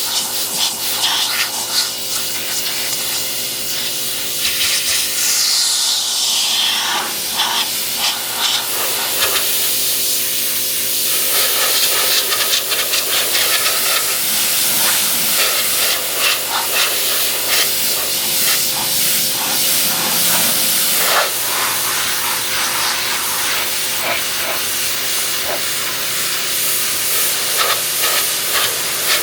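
Pressure washer jet spraying water onto a car's bodywork: a steady, loud hiss of spray that shifts in tone as the wand moves, over the steady hum of the washer's pump.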